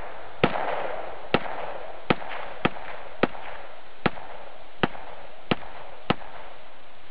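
A rapid string of about nine sharp bangs, roughly one every two-thirds of a second and not evenly spaced, over a steady hiss. They stop about six seconds in.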